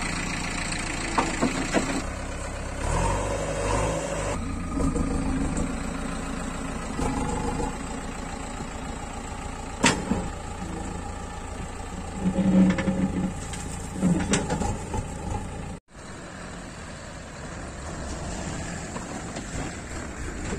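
JCB 3DX backhoe loader's diesel engine running, its pitch rising and falling as it works, with a few sharp clanks. The sound drops out for an instant about three-quarters of the way through.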